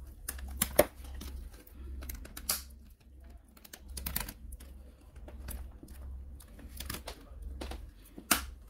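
Irregular sharp plastic clicks and snaps as a laptop keyboard and its backing plate are pried and pulled off the palmrest's plastic rivets, over a steady low hum.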